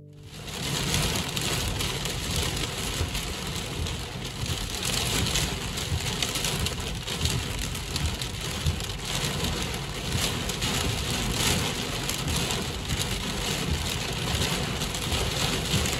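Heavy rain pounding on a car's roof and windshield, heard from inside the cabin, with a steady low rumble underneath.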